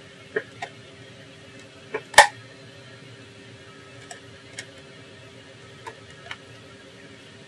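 Scattered sharp clicks and knocks of hard plastic as hands handle and press on a laptop's black plastic chassis, about eight in all, the loudest a double click about two seconds in, over a steady low hum.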